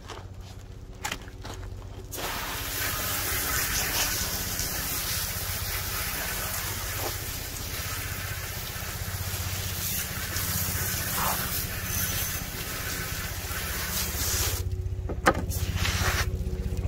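Garden hose spray nozzle hissing as a water jet washes down a plywood cutting table. It starts about two seconds in, stops about two seconds before the end, then comes back briefly. A steady low hum runs underneath.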